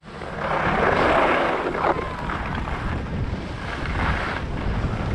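Wind buffeting the microphone: a steady low rumble under a broad rush, loudest about a second in, with a short click about two seconds in.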